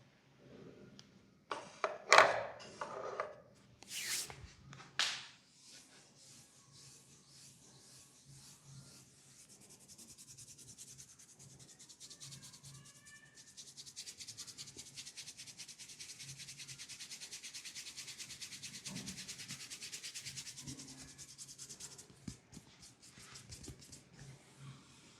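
Hands rubbing briskly in a massage: a few louder brushing strokes in the first few seconds, then fast, steady, rhythmic rubbing that builds up and fades away near the end.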